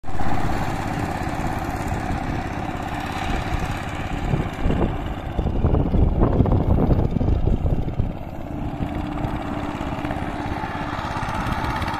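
Diesel engine of a walk-behind power tiller running steadily under load as its rotary blades churn a flooded paddy field, with a quick even engine beat. It swells a little louder for a few seconds mid-way.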